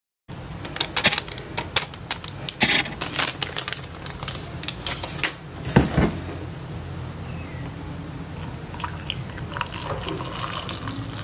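An egg is tapped and cracked with a fork and dropped into a plastic measuring jug: a run of sharp clicks and taps, the loudest knock about six seconds in. Near the end, water is poured into a mug.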